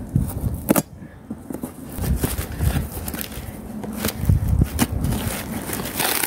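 A package being cut and pulled open by hand: irregular rustling and crackling of the packaging, with a few sharp clicks and dull handling bumps.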